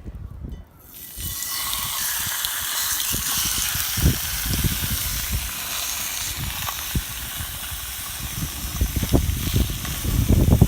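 Strong wind: a steady hiss sets in about a second in, while gusts buffet the microphone in low, irregular thumps that grow stronger near the end.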